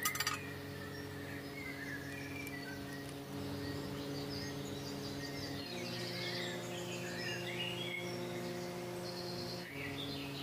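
Birds chirping in short rising and falling calls over a steady low hum, with a brief click at the start.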